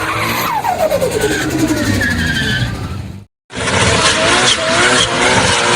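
Car doing a burnout: the engine revs with its pitch falling and the tyres squeal. The sound cuts out for a moment about three seconds in, then the tyre squeal and engine carry on.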